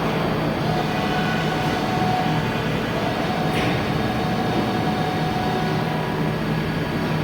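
San Rocco GR 110 table-type CNC boring machine running: a steady mechanical hum with a thin higher tone that fades and returns, and a brief tick about three and a half seconds in.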